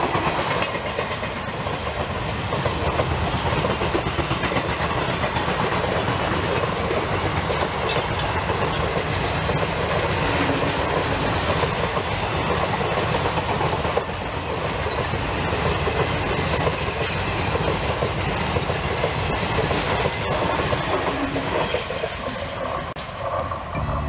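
Passenger coaches of a long Indian Railways express rolling past, their wheels clattering over the rail joints in a steady clickety-clack.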